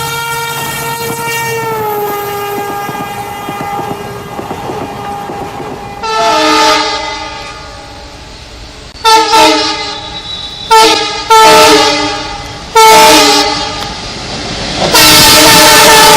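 Indian Railways diesel or electric locomotive horns. A single-pitched horn holds and then drops in pitch about two seconds in. A multi-note chord horn then gives one longer blast, several short sharp blasts, and a long loud blast near the end.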